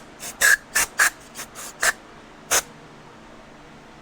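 Aerosol carburetor cleaner sprayed in about eight short, quick bursts onto small carburetor parts. The bursts stop a little past halfway.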